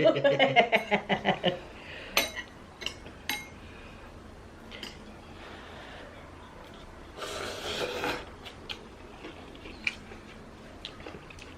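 Eating sounds: utensils clinking against a bowl in a few sharp clicks, and a noisy slurp of noodles lasting about a second, around seven seconds in. A voice is heard briefly at the start.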